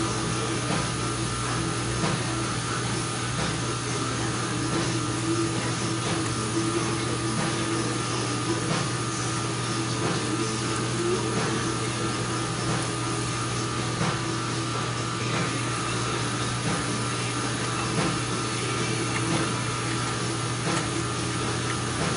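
Steady machine hum with a few constant tones, like a running fan or motor in a shop, with faint clicks of small metal parts being handled in the differential.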